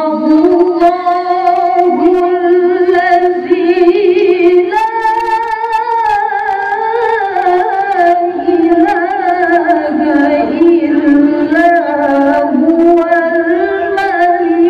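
A woman reciting the Quran in the melodic qari'ah style into a handheld microphone, sustaining long notes with quick wavering ornaments and a rise in pitch about five seconds in.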